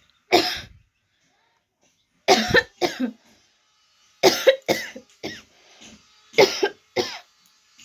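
A woman coughing: one cough, then three bouts of two or three coughs each, about two seconds apart.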